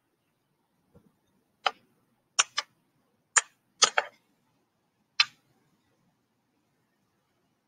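Thin plastic water bottle crackling in sharp pops as it is gripped and squeezed while someone drinks from it, about seven pops over three and a half seconds.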